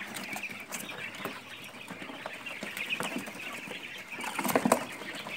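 A flock of month-old quail chirping and peeping together in short, overlapping calls, with scattered small clicks and scrapes, and a louder scuffle about four and a half seconds in.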